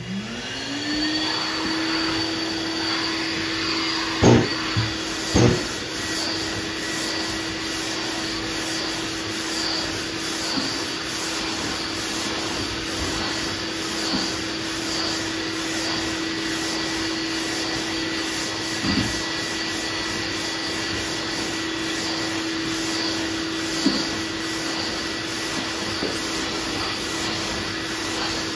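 Vacuum dust extractor switched on, spinning up over the first second and then running with a steady hum, drawing sanding dust through the hose on the hand sanding block. Two sharp knocks about four and five seconds in.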